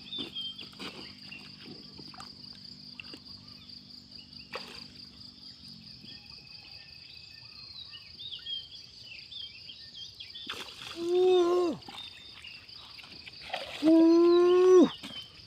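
Crickets or other insects trilling steadily in a high, even drone, with a low steady hum for the first five seconds or so. Two loud, drawn-out vocal sounds with a bending pitch come about eleven and fourteen seconds in.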